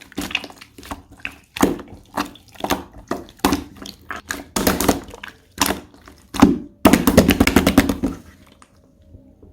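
Slime being pressed and squished by hand, making sharp pops and clicks about once a second, then a quick run of crackling pops about seven seconds in, after which it goes quiet.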